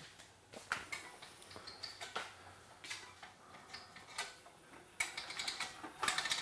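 Air hose being retracted onto a spring-driven hose reel: scattered light clicks and ticks, growing busier near the end as the hose winds in.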